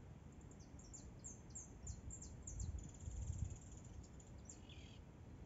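A small bird singing: a quick run of high, downward-sweeping notes, then a short rapid trill and a few lower notes near the end. A low rumble swells briefly about three seconds in.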